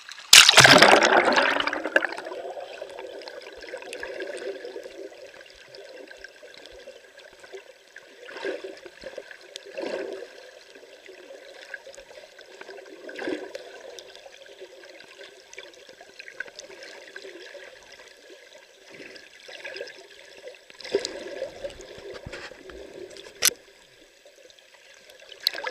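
A camera plunging underwater with a splash about half a second in, then the muffled underwater sound of water sloshing and gurgling around the camera, rising and falling unevenly, with one sharp click near the end.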